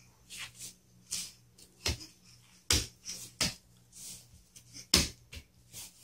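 A crawling baby's hands slapping on a foam play mat: irregular sharp slaps, the loudest four spread through the middle, with softer brushing sounds between.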